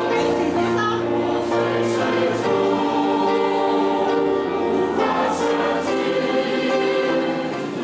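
A choir of voices singing a Christian hymn together, holding long notes in harmony.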